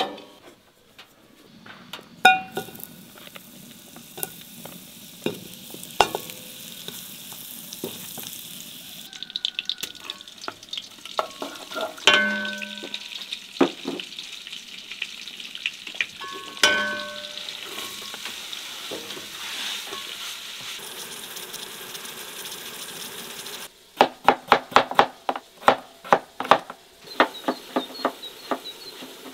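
Sizzling in a pot on a wood-fired iron stove top, the hiss thickening about nine seconds in as something is poured in, with a few sharp clanks that set the pot ringing. Near the end, a quick run of knocks, about five a second.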